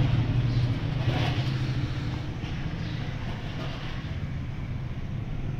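Steady low rumble with an even hiss over it, swelling slightly about a second in.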